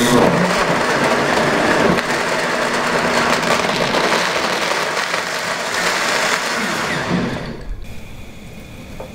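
Countertop blender starting up and running steadily, grinding onion, garlic, ginger, fresh herbs and spices into a smooth wet paste. It stops abruptly about a second before the end.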